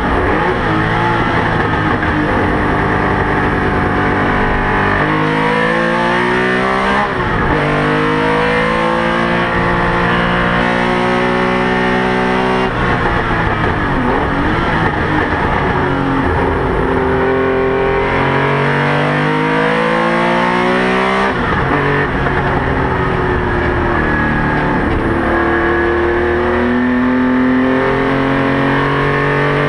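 Porsche 911 RSR's flat-six racing engine heard from inside the car at full race pace, its note climbing through each gear and dropping sharply at the gear changes, with a few lifts and dips in pitch when braking for corners.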